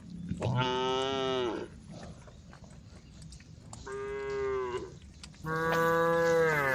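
Cattle mooing: three long moos, each holding a steady pitch and falling off at its end.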